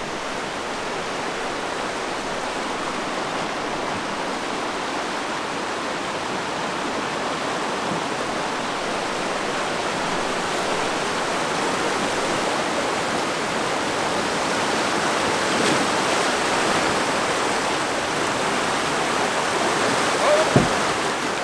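Fast creek water rushing steadily over rocks, swelling a little as a Jeep Gladiator wades through it, water churning around its tyres. A short thump near the end.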